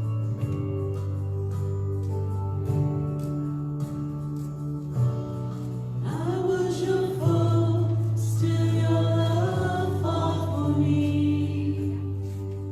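Christian worship song: held bass notes and guitar chords, with voices coming in singing about halfway through.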